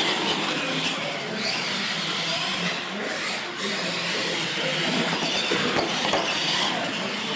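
Radio-controlled monster trucks driving on a concrete floor: electric motors and gears whining, with the pitch rising about a second in, over the rolling of their tyres.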